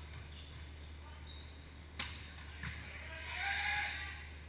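A volleyball struck sharply by hand about two seconds in, then touched again about half a second later, followed by a short burst of players' voices calling out in a large echoing gym.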